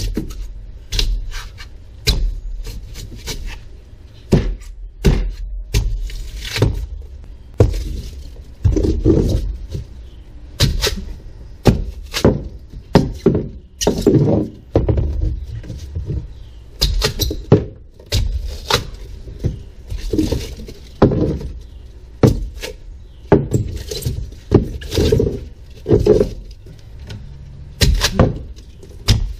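Hammer repeatedly whacking and breaking out the foam packed under a fiberglass boat dash, a long run of sharp strikes about one or two a second with short pauses, chunks of foam cracking away.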